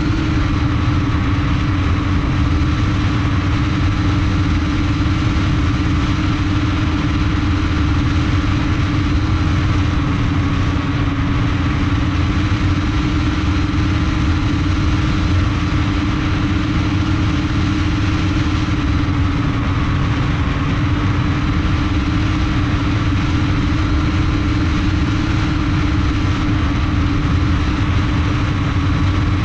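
Multirotor drone's brushless motors and two-blade propellers running at flight speed, heard from a camera mounted on the frame: a loud, steady propeller hum with a fainter higher whine and a low rumble. The hum dips slightly in pitch about two-thirds of the way through.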